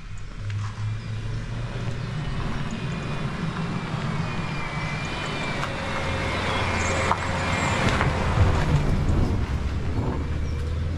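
An Audi saloon car drives up close and passes: steady engine rumble and tyre noise on the wet lane, growing louder toward the passing point about eight seconds in, then easing off.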